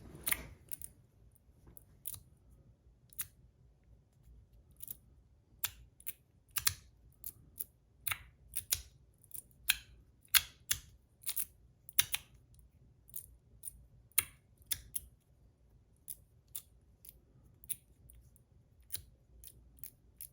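Fidget slider being played with: irregular sharp clicks as its pieces slide and snap into place, about one or two a second.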